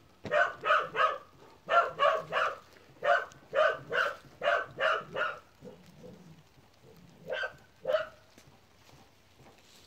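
A dog barking in quick runs of short barks, about three a second, for the first five seconds, then two single barks a couple of seconds later.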